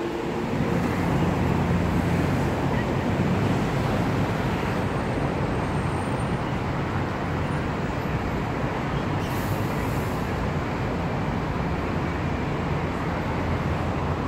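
Steady city road traffic noise with a low engine hum from nearby vehicles.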